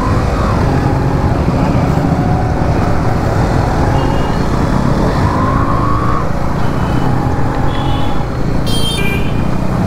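Yamaha RX two-stroke motorcycle engine running steadily while riding along, with other motorcycles in traffic around it. A brief high tone sounds near the end.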